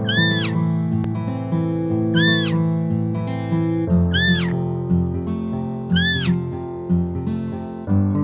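A deer fawn's high-pitched bleat, repeated four times about every two seconds, each call short and arching up then down in pitch. Acoustic guitar background music plays under the calls.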